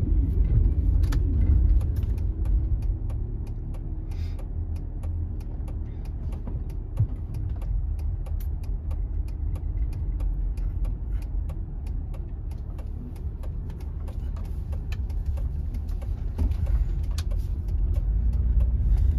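Low engine and road rumble inside a car's cabin as it creeps through town traffic, with a steady run of light ticks, about two or three a second, over it.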